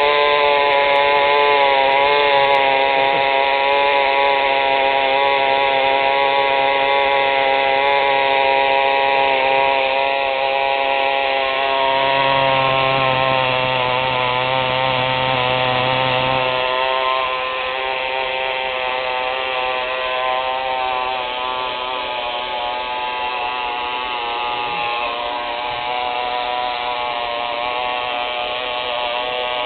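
Small electric toy outboard motor running: a loud, steady high-pitched whine. It switches on with a quick rise in pitch at the start and drops a little in loudness about two thirds of the way through.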